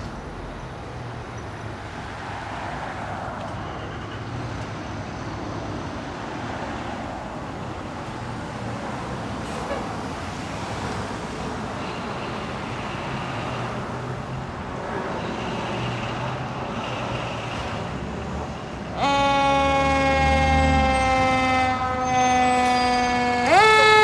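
Fire engine leaving its station on an emergency call. At first there is a low engine rumble with passing street traffic. About 19 seconds in its siren starts: a loud wailing tone with many overtones that slowly falls in pitch, then sweeps quickly back up near the end.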